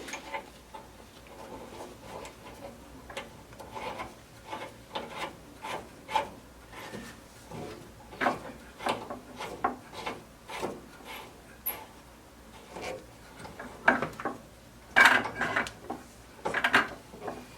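A hose coupling being screwed by hand onto the tankless water heater's cold-water valve: irregular scraping, rubbing and clicks as it is turned and tightened, loudest near the end.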